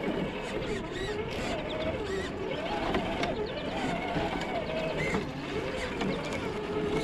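Electric motor and gearbox of a Traxxas TRX-4 RC crawler whining, the pitch rising and falling every second or so as the throttle is worked, with scattered small clicks.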